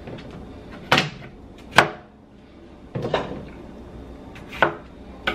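Kitchen handling sounds: five separate sharp knocks and clatters a second or so apart, as things are set down and moved about on a kitchen counter.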